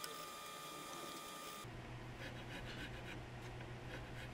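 Hand checkering tool scraping across a wooden gun grip, a quick run of short faint strokes from about two seconds in.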